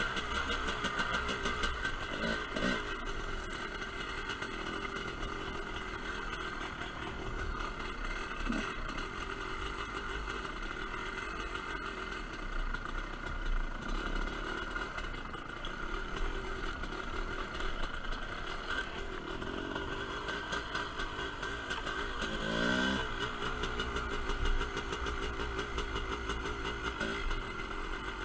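TM Racing 250cc dirt bike engine running steadily under way across rough ground. It revs up sharply a little over three-quarters of the way through.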